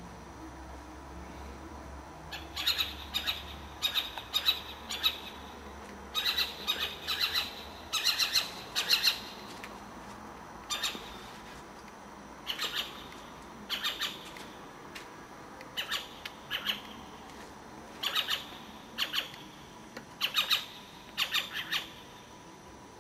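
Owl giving short, harsh squawking calls in quick clusters of two to four notes, repeated every second or two for about twenty seconds.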